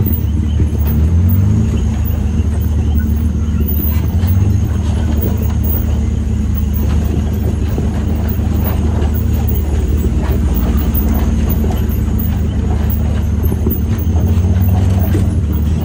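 Can-Am Maverick X3 Turbo RR side-by-side's turbocharged three-cylinder engine running under way, a steady low drone that rises in pitch about a second in.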